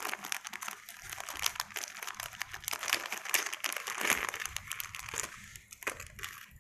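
Thin plastic packet crinkling and crackling as hands handle it and pull the earrings out, thinning to a few separate clicks near the end.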